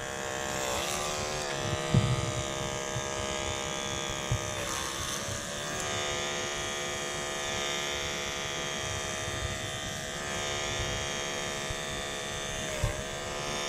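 Corded electric hair trimmer buzzing steadily as it cuts hair, its pitch dipping briefly a few times.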